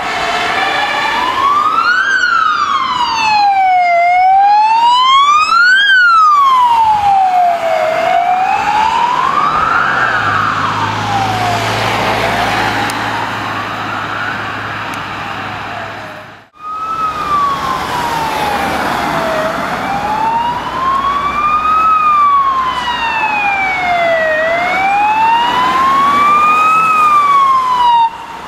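Electronic wail sirens of a medical response car and an ambulance on an emergency run. The siren rises and falls slowly, each sweep up and down taking about four seconds. About halfway through it cuts off abruptly and a second, slightly lower wail takes over, sweeping a little more slowly.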